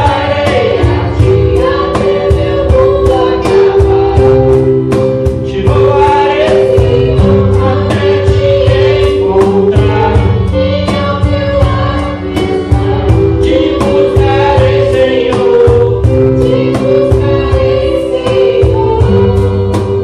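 A man and two women sing a Portuguese worship song together into microphones, with held notes over instrumental accompaniment that has a steady beat.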